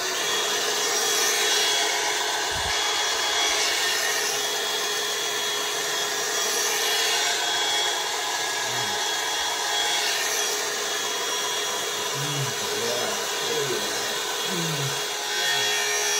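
Power drill spinning a shaving brush through shaving lather: a steady whir with bristles brushing and rubbing.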